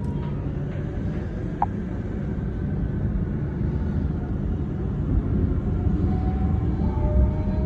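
Rail construction machinery running with a steady low engine rumble. There is a brief high ping about a second and a half in, and faint rising whines near the end as the rumble grows slightly louder.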